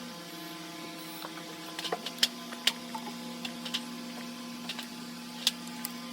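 A steady electrical hum with a few scattered light clicks and taps.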